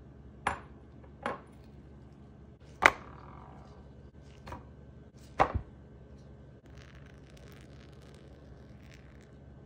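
A glass bowl and food packaging being handled on a tiled counter: five sharp knocks and clicks, the third the loudest with a brief glassy ring, then a few seconds of faint crinkling of packaging.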